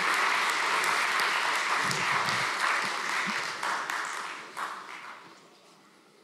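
Audience applauding, many hands clapping at once. The clapping dies away over the last second or two.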